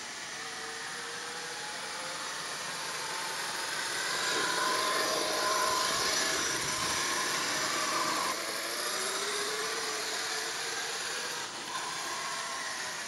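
HPI Savage Flux HP radio-controlled truck running, its brushless electric motor whining and rising and falling in pitch as it speeds up and slows, over a hiss of drivetrain and tyre noise. It is loudest about four to eight seconds in.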